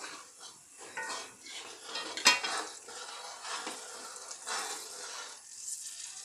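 A spoon stirring and scraping chilli and coriander powder through hot oil in a cheenachatti (Kerala wok), in repeated strokes with the oil sizzling faintly. The spoon knocks sharply against the pan about two seconds in.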